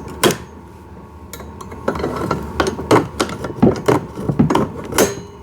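Irregular clicks and knocks of hands working on the steering mechanism of a kids' ride-on car to remove the two zip ties holding it, thickest in the second half, with one sharp knock near the end.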